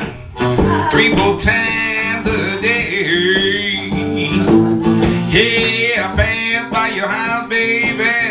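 Live acoustic blues: a man singing over a strummed acoustic guitar, with harmonica played along.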